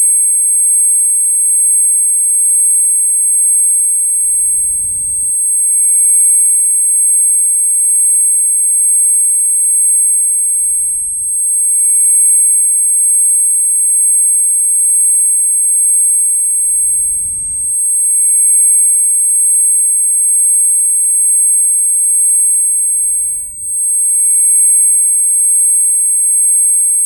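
Tinnitus-style ear-ringing sound effect: a steady, piercing, very high-pitched tone with a second tone just below it, unbroken throughout.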